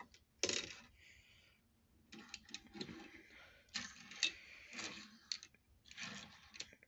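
Faint clicking and rustling from small objects being handled: die-cast toy cars and their plastic cases being gathered up and put away, in short bursts a second or so apart.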